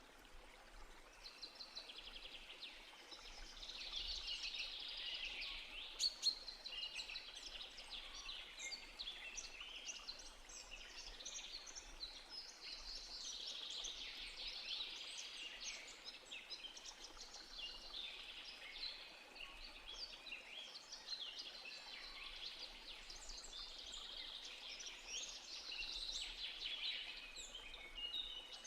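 Many small birds chirping and trilling together in a continuous chorus of quick high notes, with a sharp click about six seconds in.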